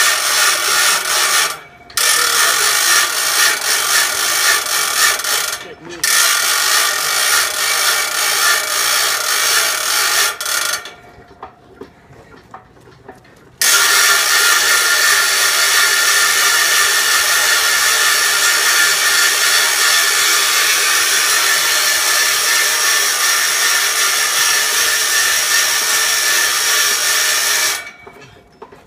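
Hand-cranked wheel of a gravity-generator rig clattering with rapid ratcheting clicks as it is turned. It stops briefly twice, pauses for about three seconds near the middle, then runs on steadily until it stops near the end.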